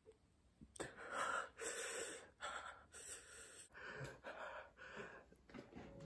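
A young man breathing hard in panic: a quick run of about eight to ten loud, ragged gasps, starting about a second in.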